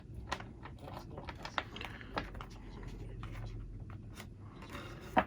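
A knife slicing off excess tubing on the soldered connectors: a few scattered small clicks and cuts, with a sharper click near the end.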